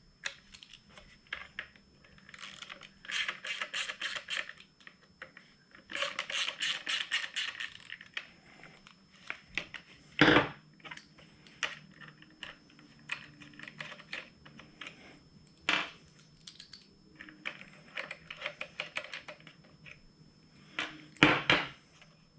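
Hand-tool work on small screws: two runs of quick clicking as Torx screws are backed out of a motorcycle cornering-light mount, with light metallic clinks of screws and parts, and a few sharper knocks.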